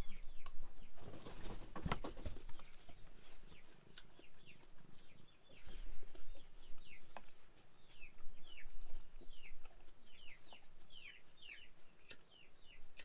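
Chicks peeping over and over, each peep short, high and falling in pitch. A short spell of knocks and rustling comes about a second in.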